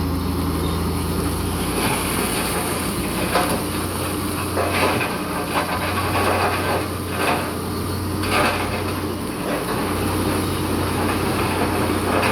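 Bulldozer's diesel engine running steadily under load, with irregular metallic clanks and scrapes of its steel tracks and pushed rock about every second or two.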